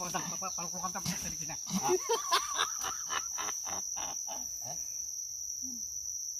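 Steady high-pitched buzz of insects, with short pitched grunts and a run of quick rustling pulses from a captured feral pig being tied with rope. It goes quieter near the end.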